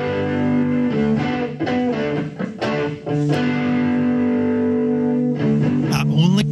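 Rock band playing an instrumental intro: electric guitars holding chords that change every second or so over bass and drums, with a note sliding up near the end.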